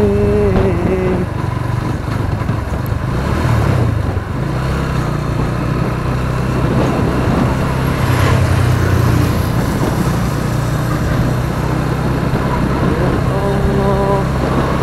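Motorcycle engine running steadily while riding, under a constant rush of road and wind noise.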